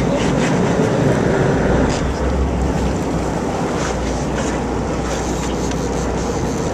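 Steady wash of wind and sea water around an offshore fishing boat, with a constant low engine rumble underneath.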